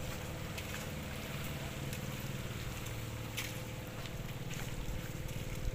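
An engine running steadily at an even speed, a low drone, with wind on the microphone.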